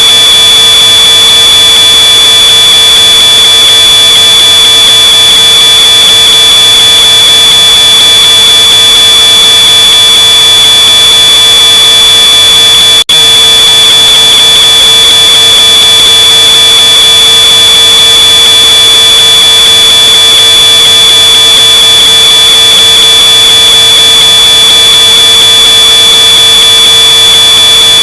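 Smoke alarm sounding one continuous, shrill high-pitched tone, boosted to full volume and harshly distorted, with a brief cut about halfway through.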